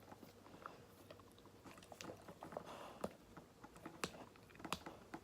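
Faint, scattered wet clicks of a dog licking and mouthing close to the microphone, with a few sharper clicks in the second half.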